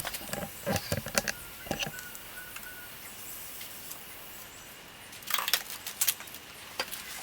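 Light, scattered clicks and knocks of small metal hand tools from a tire plug repair kit being handled at the tire. A few come in the first couple of seconds, then a quieter stretch, then another cluster about five seconds in.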